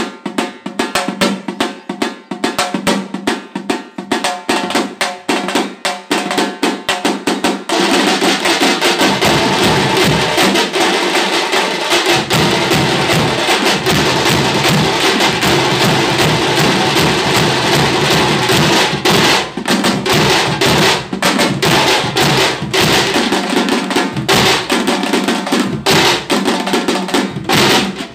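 A street drum band of large bass drums and smaller side drums playing a fast rhythm. About eight seconds in, the strokes merge into a continuous roll for roughly ten seconds, with the deep drums filling in beneath, before separate rapid beats return.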